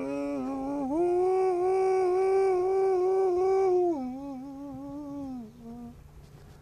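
A man's voice singing the wordless, drawn-out opening call of a field holler. One long held note steps up about a second in and holds, then drops to a lower note near the middle and ends in a short final note.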